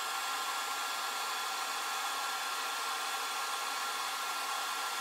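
Steady whir of a small cooling fan with a thin, constant whine riding on it, running while a CNC-mounted diode laser module fires and marks the board.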